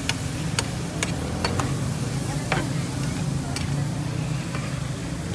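A flat steel spatula stirs and scrapes mutton liver frying in oil on a large tawa griddle, over a steady sizzle. The spatula strikes the griddle in irregular sharp clacks, most of them in the first two seconds. A steady low hum runs underneath.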